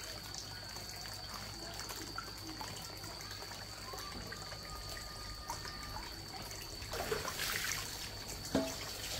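Water trickling steadily, with a thin high steady tone behind it. Louder short handling noises come in about seven seconds in.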